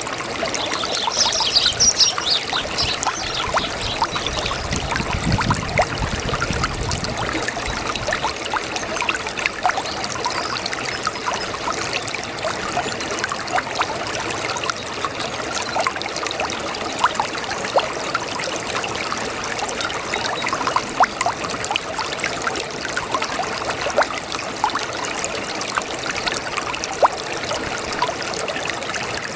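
Brook babbling: water running and trickling over stones, a steady rush dotted with small splashes and gurgles.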